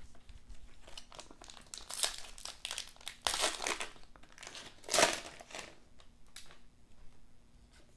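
Foil wrapper of a basketball trading-card pack crinkling as it is torn open and handled, in irregular rustles, loudest about three and five seconds in.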